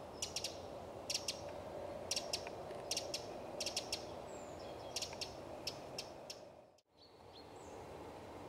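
Eurasian wren giving sharp ticking calls, in quick groups of two or three about once a second, over steady background noise; the sound cuts out briefly about seven seconds in.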